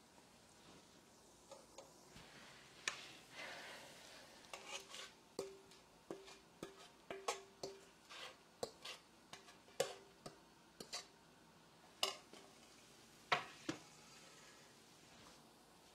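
Potato latke frying in a skillet of hot oil: irregular sharp pops and crackles of spitting oil over a faint sizzle, the loudest pops near the end.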